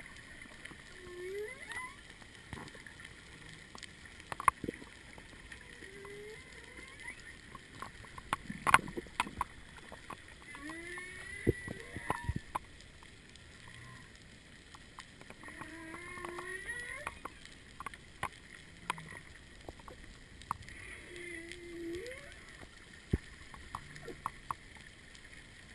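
Humpback whale song heard underwater: short rising moans and whoops repeating every few seconds, with higher squeaky glides, over scattered sharp clicks and crackle.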